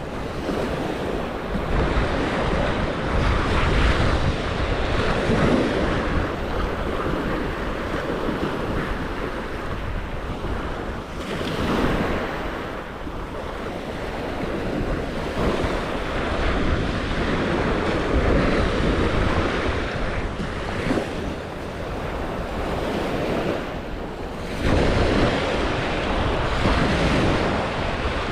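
Waves washing onto a beach, surging every few seconds, with wind buffeting the microphone.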